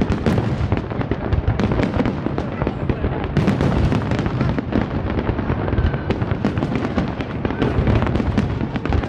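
Large aerial fireworks display: a dense barrage of shells bursting one on top of another, overlapping bangs and crackles with no pause.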